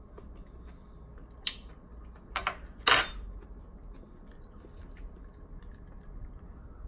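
Sounds of eating at a table: chewing and a few sharp clinks of a metal spoon against dishes, the loudest about three seconds in.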